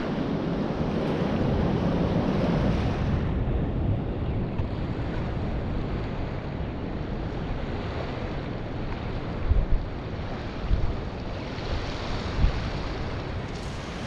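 Small waves washing onto a coarse sand and pebble shore, mixed with wind rumbling on the microphone, and a few low thumps in the second half.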